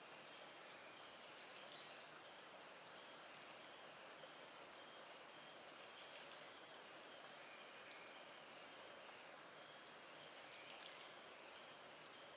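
Near silence: faint outdoor ambience, with a few faint, short, high chirps scattered through it.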